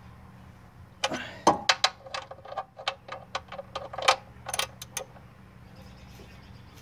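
Ratchet wrench clicking as the oil pan drain plug is tightened: an irregular run of sharp clicks starting about a second in and lasting about four seconds, then stopping.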